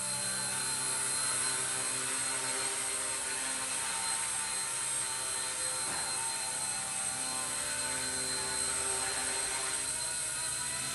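Blade mCP X micro collective-pitch RC helicopter hovering, its electric motors and rotor blades giving a steady whine of several tones that waver slightly in pitch as the pilot works the throttle. It is running at almost full throttle to hold the hover.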